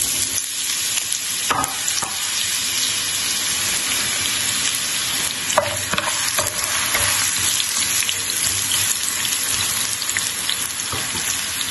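Sliced onions sizzling steadily as they fry in hot oil in a pan, stirred with a spatula, with a few short scrapes of the spatula against the pan.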